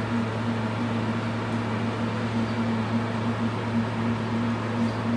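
A machine's steady low hum, with a higher tone in it that flutters rapidly.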